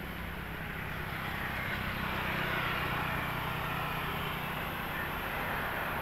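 Road traffic: the steady hiss of a vehicle's tyres and engine on asphalt, growing louder over the first two seconds or so and then holding.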